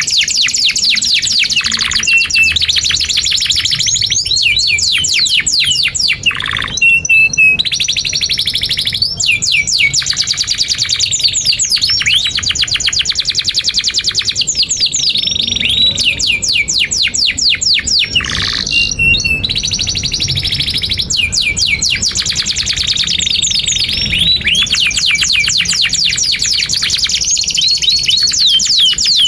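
Domestic canary in full song: a long, continuous run of rapid trills and fast-repeated chirps, phrase after phrase with only brief breaks.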